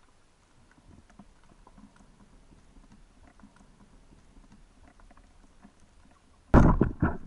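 Underwater, faint scattered clicking and crackling, then about six and a half seconds in a sudden loud thud and clatter of a few quick strokes, over in under a second: a speargun firing, its spear striking a fish.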